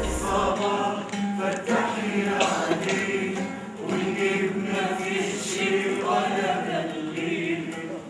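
A stage cast singing together in a choir-like chant.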